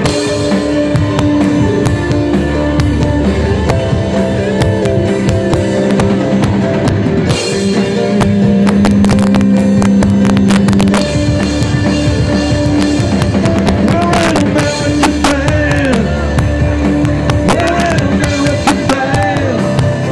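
Live band playing a rock song: grand piano, drum kit and guitar, loud and steady throughout.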